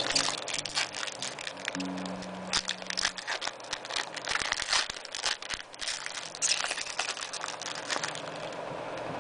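Foil wrapper of a 2004-05 Hoops basketball card pack crinkling and crackling as it is torn open and handled, with cards being shuffled, in quick irregular crackles.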